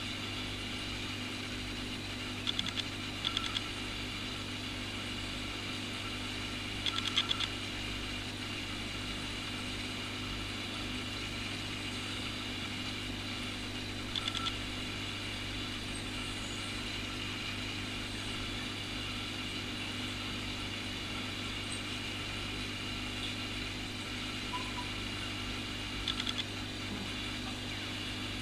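Aquarium pump humming steadily, with a few short runs of quick clicks.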